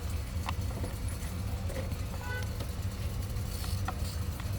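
An engine idling steadily, a low even hum, with a few faint clicks.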